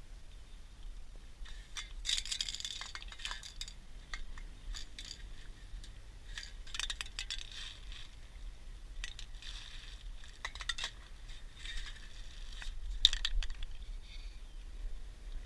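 Metal aerosol spray-paint cans clinking and knocking against each other as they are rummaged through and picked out of a bag, with crinkling of a plastic bag. The clinks come in irregular bunches.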